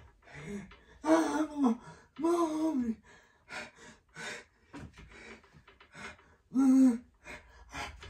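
A man's nervous gasps and quick breaths with no words, broken by three louder drawn-out wordless cries, about a second in, around two and a half seconds, and near the end: the sounds of someone afraid to jump down onto spiked boards.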